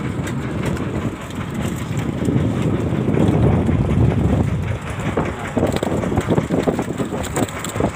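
A boat's engine running as a steady low rumble, with scattered knocks and rustles in the second half.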